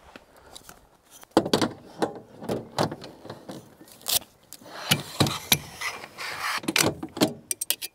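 Telescopic roof-tent ladder being pulled out section by section, a quick run of sharp clacks as each section slides and locks, starting about a second in.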